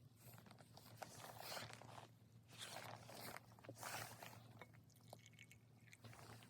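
Faint crunching and scraping noises, about five short ones in a row, with small sharp clicks between them.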